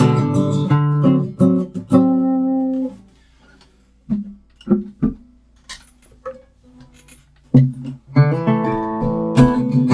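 Acoustic guitar strummed, the chords breaking off about three seconds in; after a brief hush a few single notes are plucked, then steady strumming resumes about two-thirds of the way through.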